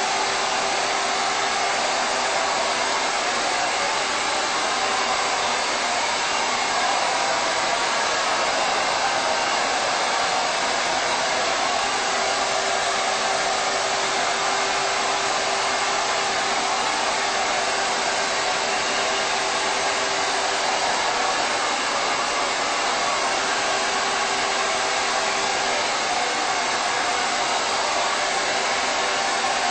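Handheld hair dryer running continuously at one steady speed while blow-drying hair: an even rush of air with a steady hum beneath it.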